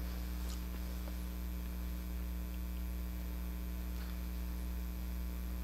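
Low, steady electrical mains hum with evenly spaced higher overtones, unchanging throughout.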